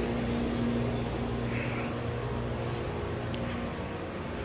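Steady mechanical hum of an electric appliance or blower, holding a few low steady tones, with faint handling rustle.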